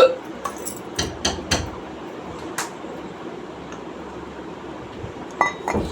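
A woman's single loud hiccup right at the start, followed by a handful of light knocks and taps, and two sharper ones near the end.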